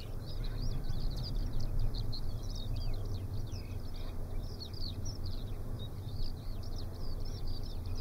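Small birds chirping continuously over a steady low rumble: a utility-scale wind turbine heard from about 500 metres away on a calm day, its sound about as loud as the open-country background.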